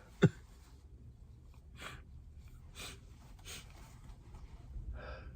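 A man with a congested head cold gives a short, sharp vocal burst near the start. Then come several breaths and sniffs through a blocked nose, while a sneeze that won't come out builds.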